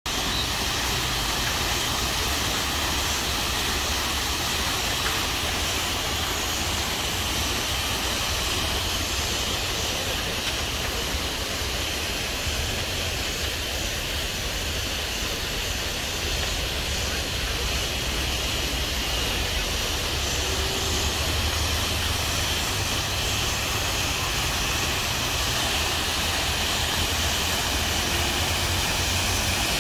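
Outdoor ornamental fountain splashing: a steady rushing hiss of falling water with a low rumble underneath.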